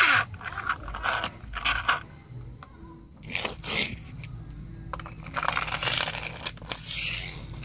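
Handling noise in several short crunching, rattling bursts, about four of them, spread through the stretch.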